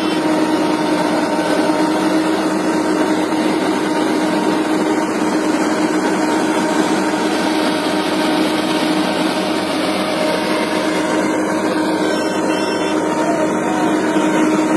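Shaktiman sugarcane harvester's engine and machinery running steadily while cutting cane, a continuous drone with a steady hum, mixed with the engine of a tractor running alongside.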